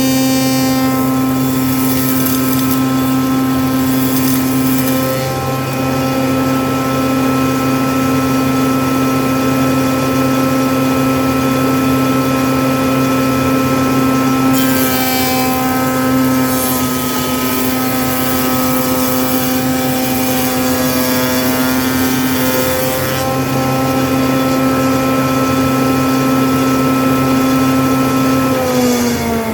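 Woodworking power tool cutting a joint profile along a plank edge: the motor runs at a steady pitch with a coarser rasp of cutting through the middle stretch, then winds down near the end.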